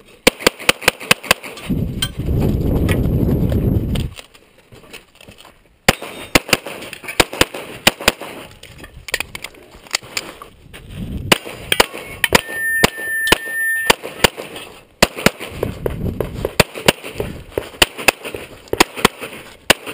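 Open-division Glock 35 pistol firing a stage: quick strings of shots, often in pairs, with short pauses between strings. A stretch of loud low rumbling noise comes about two seconds in.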